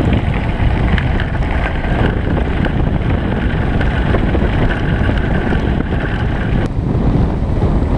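Wind buffeting a GoPro's microphone over the rumble of mountain-bike tyres rolling fast on a gravel fire road. The noise is steady and loud, and its character shifts abruptly about two-thirds of the way through.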